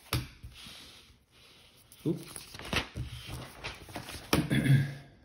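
Pages of a spiral-bound paper workbook being flipped by hand: paper rustling with several sharp knocks and slaps as the pages and book shift on a wooden table.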